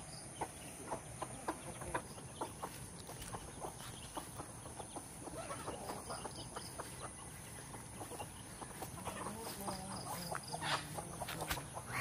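A chicken clucking, a string of short clucks at irregular intervals.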